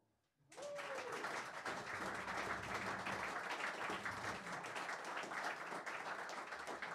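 Audience applauding: many hands clapping at once, starting about half a second in and holding steady.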